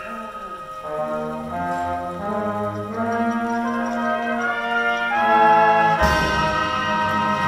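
Orchestral music led by brass, playing a phrase of held notes that climbs step by step to a loud final chord about six seconds in, where a crowd starts to cheer and applaud.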